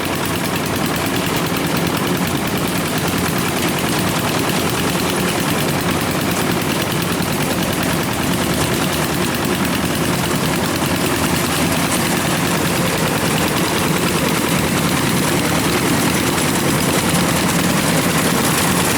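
Kubota rice combine harvester's diesel engine running steadily under load, with a rapid chattering exhaust.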